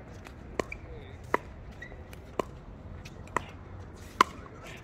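Pickleball rally: paddles striking the hard plastic ball, five sharp hits about a second apart, the last one the loudest.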